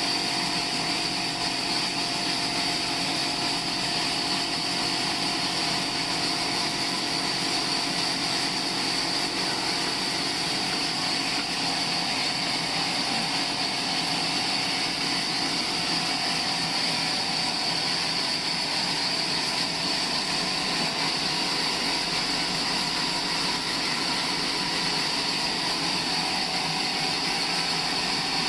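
Sawmill saw running steadily, cutting through a log, with an even, unbroken machine noise and a high whine.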